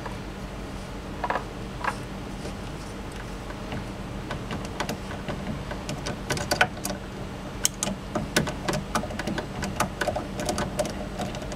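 Screwdriver turning out a screw from the F1 gearbox pump motor's mounting, making sharp metal clicks: a few scattered ones at first, then coming quick and irregular from about halfway.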